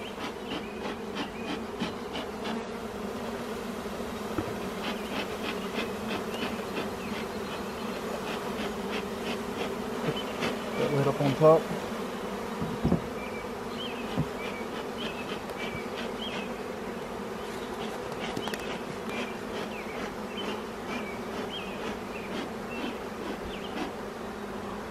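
A mass of Russian honeybees, just shaken from their package into an open hive box, buzzing in a steady hum. A knock about halfway through as the wooden hive lid is set on.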